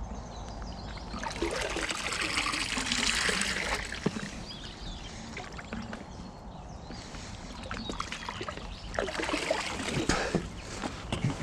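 Water trickling and splashing from a bait bucket at the water's edge, in two spells: one starting about a second in and lasting a few seconds, another near the end, followed by a few light knocks.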